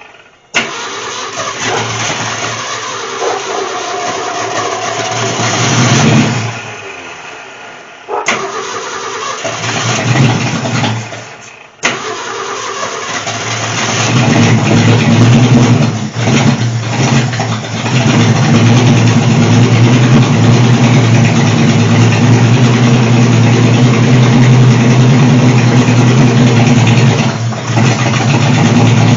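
Rebuilt Ford Falcon engine, fed with starting fluid, firing in ragged spurts that die away twice, then catching about 14 seconds in and running steadily and loudly through a cut-off exhaust pipe.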